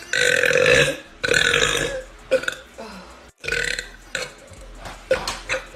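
A woman burping: two long, loud burps of about a second each, back to back, then a few short, quieter sounds.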